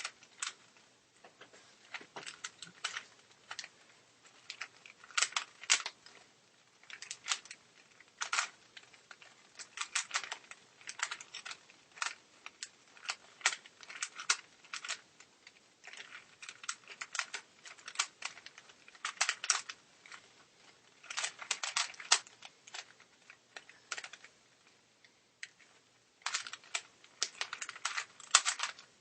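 A 3x3 Rubik's cube being turned fast by hand in a speed solve: quick runs of plastic clicking and clacking as the layers snap round, broken by short pauses, with a longer pause a few seconds before the end.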